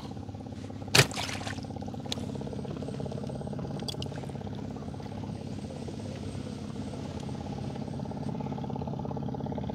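A small boat's engine running steadily, with one sharp knock about a second in and a couple of faint clicks after it.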